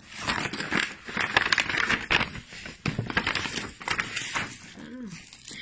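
Wrapping paper and plastic rustling and crinkling by hand as a gift, a red handbag, is pulled out of its packaging.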